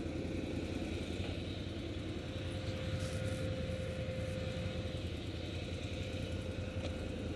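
Can-Am quad bike (ATV) engine idling steadily.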